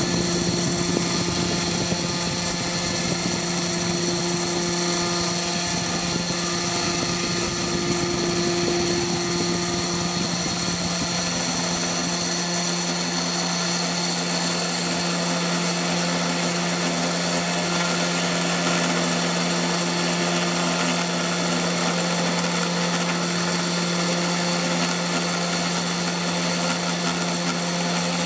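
CNC2418 desktop router's 775 spindle motor running at 10,000 rpm while a 1 mm two-flute corn-cob end mill cuts a circle in 2 mm aluminium plate in shallow 0.07 mm passes: a steady low hum under a high whine.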